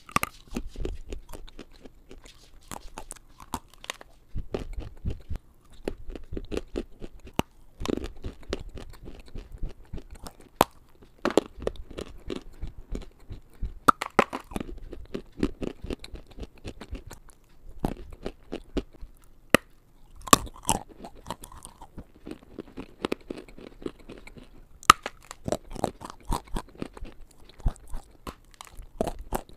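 Close-miked biting and chewing of smoked eko, a baked edible clay: many sharp, brittle cracks as pieces are bitten off, with softer grinding chews between them.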